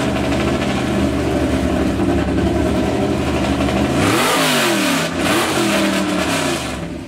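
800-horsepower trophy truck engine idling steadily, then revved twice in quick succession about four seconds in, the pitch rising and falling each time before it drops back to idle.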